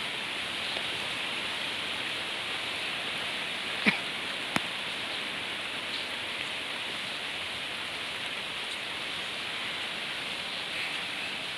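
Steady rush of falling water from a waterfall, mixed with rain. Two short sharp clicks stand out about four and four and a half seconds in.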